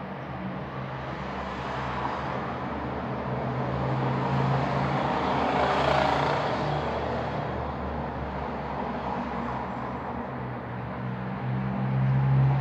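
A road vehicle passing by: traffic noise swells to a peak about halfway through, fades, then rises again near the end.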